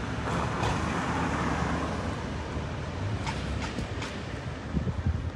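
A car running at low speed, heard from inside the cabin: a steady low rumble of engine and tyres, with a few faint clicks a little past the middle.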